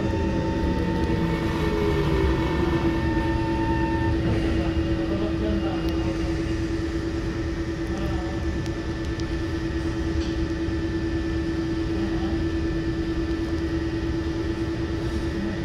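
Inside an SMRT C151 train braking to a stop at a station: the motor whine falls in pitch over the first few seconds as the train slows. It then gives way to a steady electrical hum over a low rumble while the train stands at the platform.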